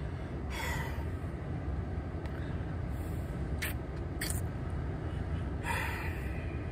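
Steady low rumble inside a pickup truck's cabin, with a few short breathy hisses, one about half a second in and one near the end.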